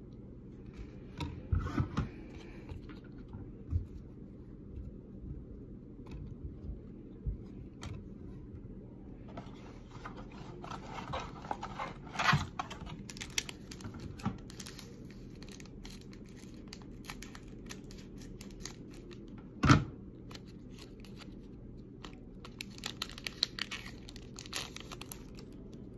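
Paper-and-foil trading-card pack wrapper crinkling and cards being handled and slid against one another in the hands. The scattered rustles and clicks get busier around ten to fourteen seconds in and again near the end, with one sharp knock about twenty seconds in.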